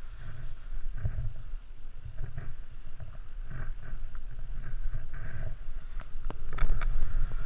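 Skis scraping and hissing over snow in repeated turns, under a gusty low rumble of wind on the microphone; louder scrapes and a few sharp clicks near the end.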